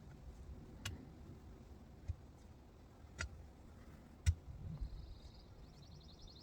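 A digging tool striking into the ground four times, about a second apart, as a hole is dug; each strike is a short thump with a sharp click.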